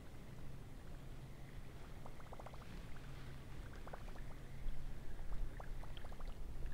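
Spinning reel being cranked to retrieve a cast topwater lure across stream water, with a faint gurgling haze and several short runs of quick, light clicks.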